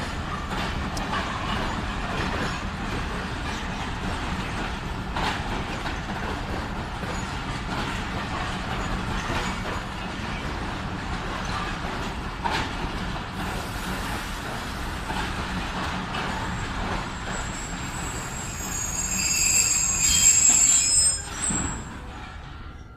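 Passenger train rolling along the platform with a steady rumble and occasional knocks of wheels on the rails. Near the end there is a loud high-pitched squeal of wheels and brakes as it slows, and the sound cuts off suddenly.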